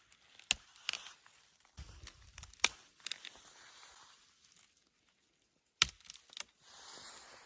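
A few sharp snaps and crackles, spaced out with quiet between them, as tender aralia shoots and twigs are snapped off and handled.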